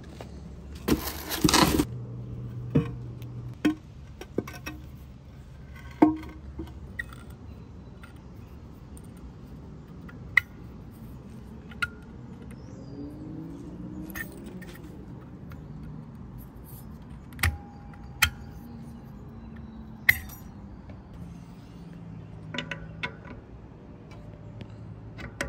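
Metal grill parts being handled: a loud clatter about a second in, then sparse sharp clinks and knocks.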